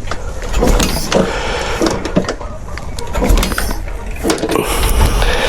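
Royal Enfield Classic 500 single-cylinder engine being kicked over with the kickstarter, turning over in uneven thumping strokes with mechanical clatter and not firing.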